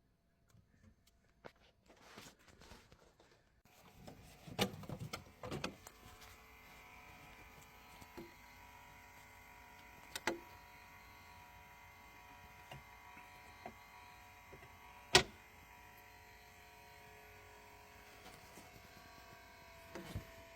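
Small electric motor starts about four seconds in and runs steadily with a hum. Several sharp clicks and knocks come through it, the loudest about fifteen seconds in.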